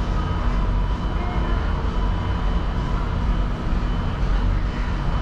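Steady low mechanical rumble with a faint steady hum above it, the running machinery noise of a commercial kitchen.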